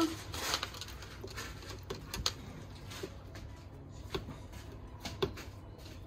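Scattered light clicks and knocks from parts of a countertop dishwasher being handled, about seven in all, the loudest a little over two seconds in and a little over five seconds in.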